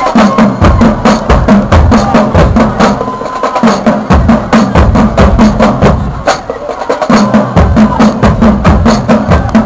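High-school marching band drumline playing a fast cadence: dense snare strikes over heavy bass-drum beats.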